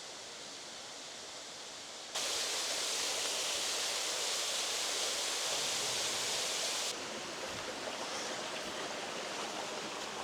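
Waterfall rushing, a steady hiss of falling water. It turns abruptly louder and brighter about two seconds in and drops back just before seven seconds.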